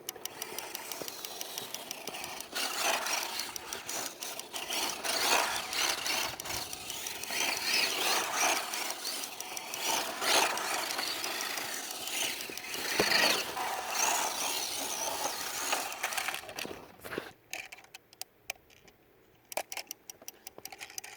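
Battery-powered toy scale air compressor playing its recorded compressor running sound effect through its small speaker, a rough clattering machine noise that stops about 17 seconds in.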